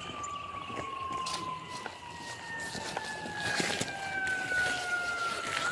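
Emergency vehicle siren on a slow wail, its pitch falling steadily, then turning upward again right at the end. Short knocks and rustles of footsteps and gear come through the body-worn camera, busier in the second half.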